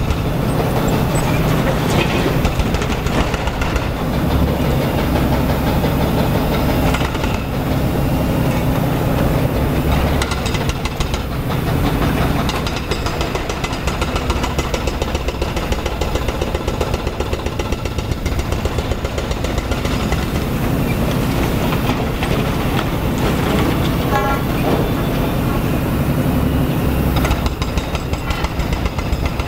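Liebherr crawler excavator's diesel engine running steadily under load as it digs and swings its bucket, with a continual clatter and knocking of the machine and of other site machinery.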